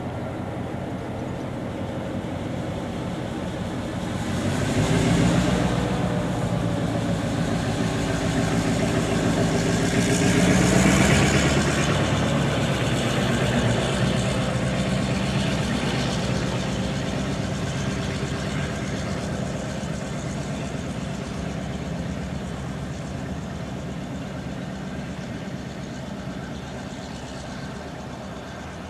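GM-engined diesel locomotive working by, its engine note swelling about four seconds in, loudest around eleven seconds, then slowly fading away.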